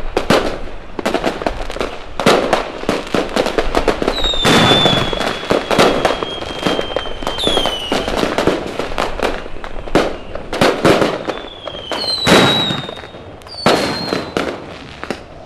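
Fireworks display: a dense run of rapid crackling bangs and pops, with several high whistles that hold their pitch and then drop, the longest lasting about three seconds.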